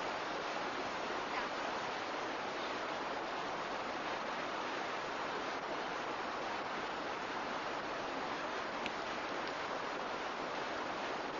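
Steady rushing of water, an even noise with no breaks, during heavy rain.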